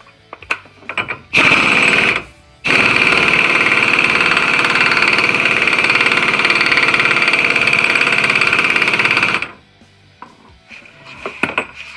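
Impact wrench hammering on the 34 mm axle nut of the wheel hub: a short burst of about a second, a brief pause, then about seven seconds of steady hammering that stops suddenly.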